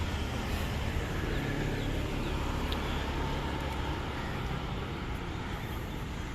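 City road traffic: a steady rumble of passing cars and other motor vehicles.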